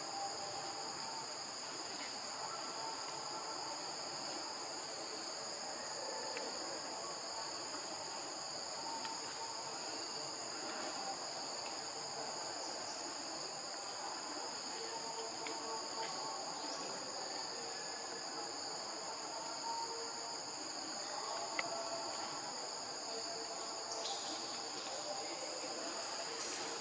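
Steady, high-pitched chorus of insects, with a rougher, hissier buzz joining in near the end.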